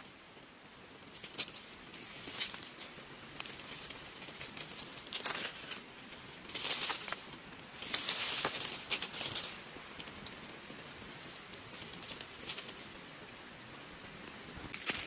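Rustling and scraping with scattered sharp clicks, several longer hissing scrapes around the middle.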